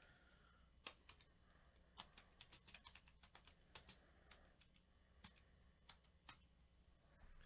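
Faint, irregular clicking of typing on a computer keyboard, a few keystrokes at a time, over a low steady room hum.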